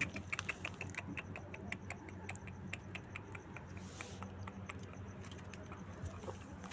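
A rapid run of light clicks and taps, several a second, thinning out after about four seconds, with a brief rustle about four seconds in, over a low steady hum.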